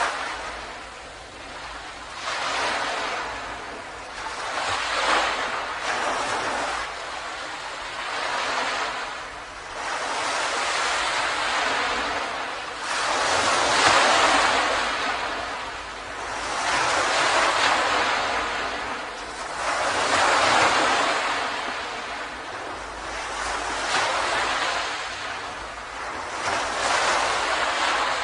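Ocean waves breaking on a beach, the surf swelling and fading every few seconds in an even wash, with no pitched sound in it.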